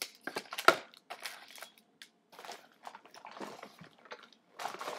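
Packaging and a reusable shopping bag being handled: irregular rustling and crinkling, with a sharp crackle a little under a second in.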